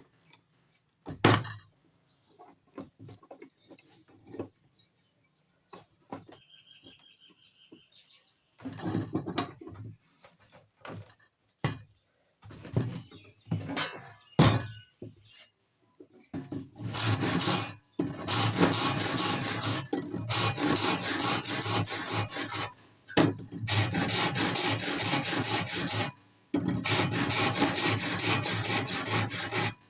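Scattered knocks and clicks of tools and wood being handled, then from about halfway a continuous run of quick scraping strokes of a hand tool working wood, pausing briefly twice.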